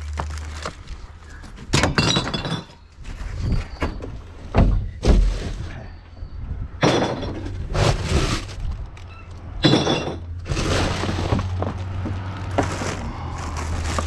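Gloved hands rummaging through a wheelie bin of rubbish: plastic packaging and bags crackling and rustling, with repeated sharp knocks and clatters as containers and cans are moved about.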